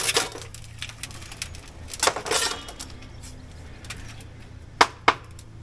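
Steel bricklaying trowel scraping and clinking on mortar and concrete blocks: a short scrape about two seconds in and two sharp taps near the end.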